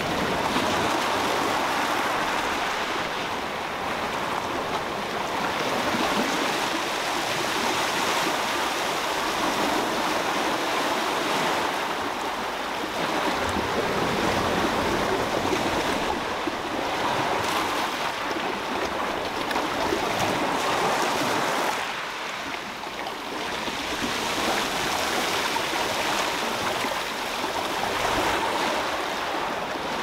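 Sea surf washing against the shore in a continuous rush of water that swells and eases every several seconds as the waves come in and draw back.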